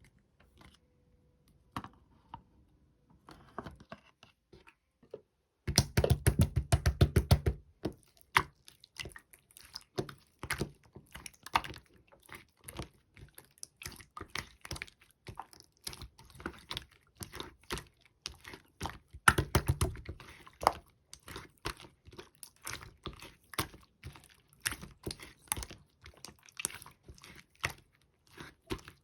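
Clear slime being handled: rapid sticky clicks and small air pops. A few faint clicks at first, then continuous from about six seconds in, with louder squishing bursts there and again around nineteen seconds.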